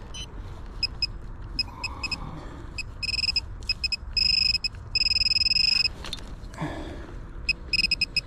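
Handheld metal-detecting pinpointer probed in the dug hole, beeping in a high electronic tone: short pips at first, then steady beeps of about a second as it sits over the target, a small lead ball. Soft rustling of soil and leaves under the beeps.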